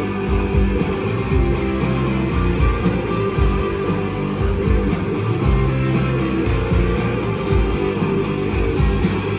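Rock band playing live through a venue PA: electric guitars, bass and drums over a steady beat, in a passage without singing.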